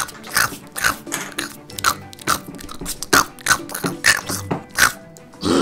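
Exaggerated chomping and chewing sound effects for a hungry character eating, about two or three bites a second.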